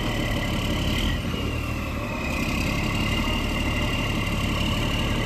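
Truck engine idling steadily, with a thin, steady high whine over the low rumble.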